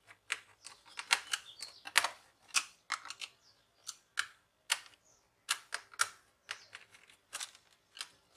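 Small screwdriver clicking and tapping against screws in a laptop's plastic base panel: irregular sharp clicks, about two a second.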